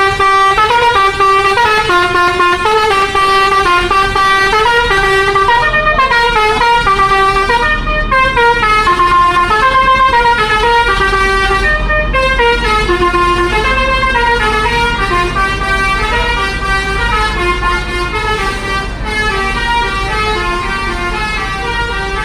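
Telolet multi-tone air horn of an NPM long-distance bus playing a long, fast tune of stepping notes without a break, over a steady low hum.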